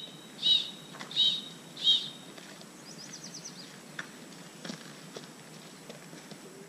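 A songbird calling outdoors: four loud, clear chirps about half a second apart, each dropping slightly in pitch, then a fast high trill of short notes about three seconds in, over a steady background hiss.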